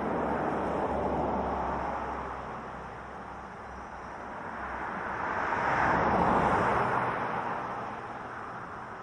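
Road vehicles passing by: a swell of engine and tyre noise in the first couple of seconds, then a louder one that peaks and fades about six seconds in as a vehicle passes close.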